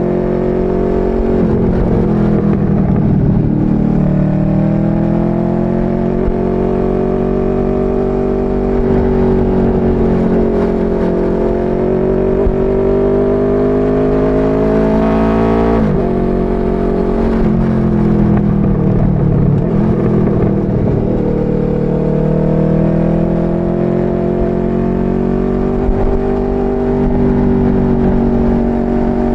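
Motorcycle engine under way, its pitch rising and falling with the throttle over several seconds at a time, with a sudden drop in pitch about sixteen seconds in before it climbs again.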